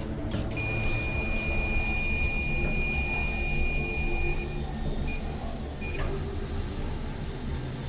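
Electrocardiograph machine beeping: one long, steady, high beep lasting nearly four seconds, then two short beeps of the same pitch, with a click just after the second, over a steady low drone.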